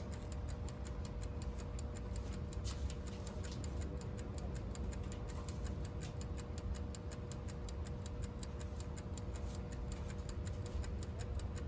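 Mechanical timer of a Schumacher SC1565 battery charger ticking in a rapid, even rhythm as it runs down after being switched on, with a steady low hum underneath.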